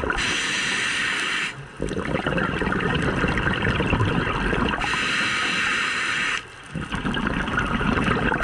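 Scuba diver breathing through a regulator underwater: a hissing inhale, then a longer low rumble of exhaled bubbles. The cycle happens twice.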